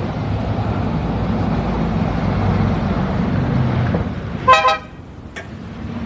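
Motor vehicle engine running steadily, then a short car horn toot about four and a half seconds in, after which the engine sound drops away.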